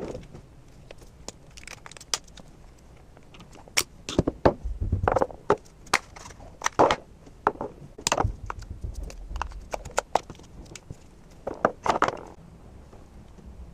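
Hands handling a DJI Action camera and its replacement battery: scattered clicks, taps and knocks of hard plastic, with a few heavier thumps about five and eight seconds in.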